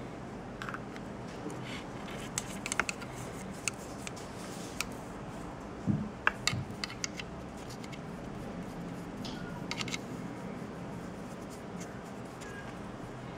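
Small scattered clicks and taps from handling a miniature and a paintbrush during painting, with a low knock and a cluster of clicks about six seconds in, over a steady background hum.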